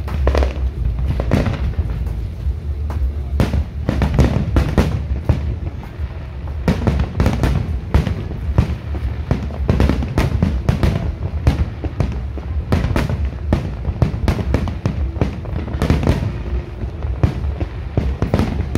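Aerial firework shells bursting in a dense, irregular series of sharp bangs, several a second, over a continuous low rumble.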